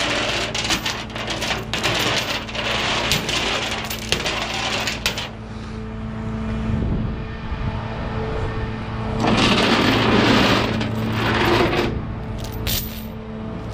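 Steel tow chain links clinking and rattling against a steel rollback deck as the chain is handled, over a steady low hum. About nine seconds in there is a louder rushing, scraping noise that lasts a few seconds.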